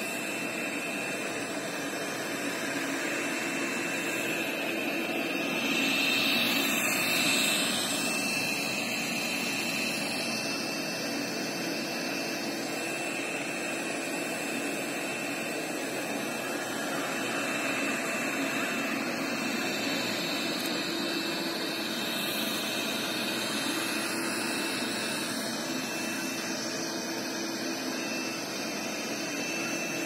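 Roidmi Eve robot vacuum running on a rug, its suction fan making a steady whir with a thin high whine, louder for a moment about six seconds in. On carpet it raises its suction power, which makes it louder than on parquet.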